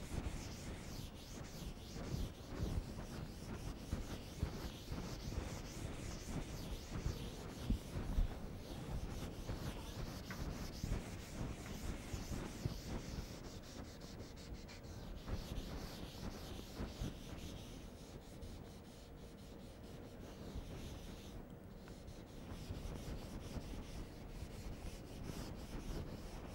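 Felt chalkboard duster rubbing across a blackboard, erasing chalk in repeated irregular strokes.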